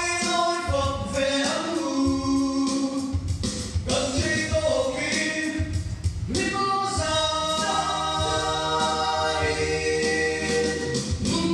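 A male vocal group of six sings in harmony into handheld microphones, and the voices come through amplified. About seven seconds in they hold a long chord.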